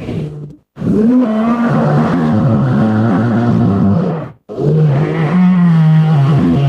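Made-up dinosaur monster calls: low, wavering bellows built from slowed and AI-altered animal vocals. One call ends about half a second in, a long call lasts about three and a half seconds, and another starts about four and a half seconds in.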